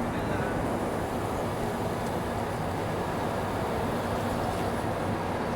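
Railway terminus ambience: a steady low hum from standing trains and station machinery over a general din, with a few faint ticks.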